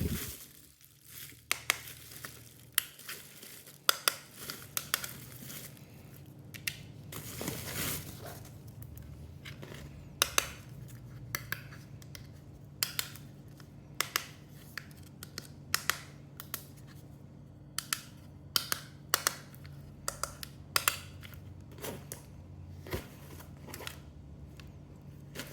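Unboxing handling noise: an irregular series of sharp clicks and snaps, with stretches of rustling packaging, over a faint low steady hum.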